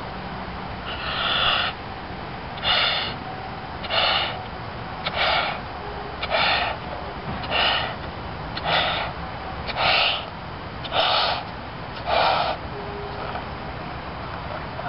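Rifco Worm 6" x 24" latex balloon being inflated by mouth: about ten short, loud breaths, a little over one a second, that stop a couple of seconds before the end.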